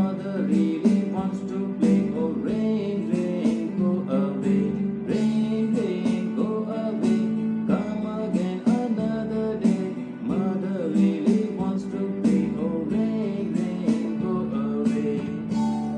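Music: a simple children's rain song with guitar-like accompaniment and a steady beat, a voice singing the melody.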